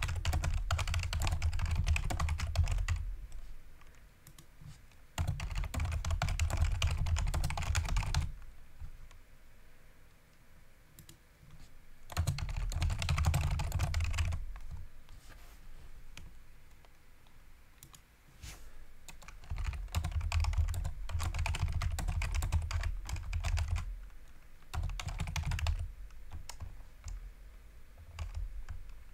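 Typing on a computer keyboard in bursts of a few seconds each, with short pauses between.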